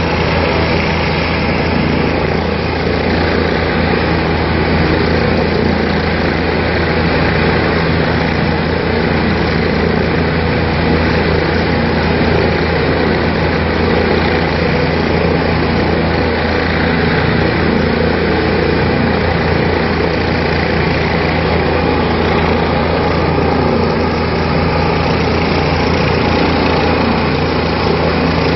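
Helicopter running on the ground with its main rotor turning, a loud, steady mix of turbine whine and rotor hum that doesn't change.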